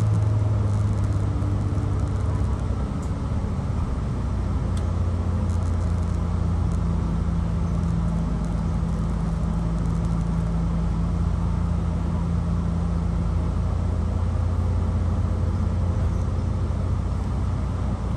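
Shuttle bus cruising at steady speed, heard from inside the cabin: a continuous low engine drone over an even rush of tyre and road noise.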